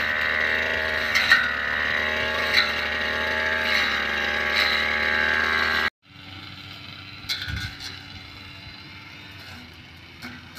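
Petrol brush cutter running steadily at cutting speed, with a few sharp clicks over the engine. About six seconds in, the sound cuts off abruptly to a much quieter background with occasional faint ticks and a low thump.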